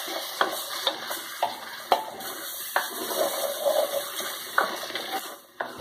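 Rice and tomato purée sizzling as they fry in an earthenware clay pot, stirred with a spoon that knocks and scrapes against the pot several times.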